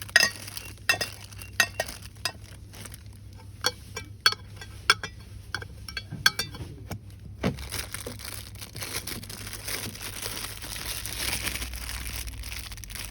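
Sharp taps and clinks on hard items, then, from about halfway, steady crinkling and rustling of packaging being handled.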